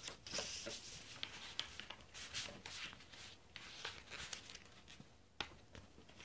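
Sheet of paper rustling and sliding as it is handled and folded by hand on a tabletop, in scattered soft bursts, with one sharp tick about five seconds in.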